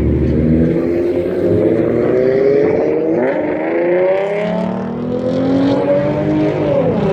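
A car engine revving hard, its pitch climbing, dipping about three seconds in, climbing again and then falling away near the end.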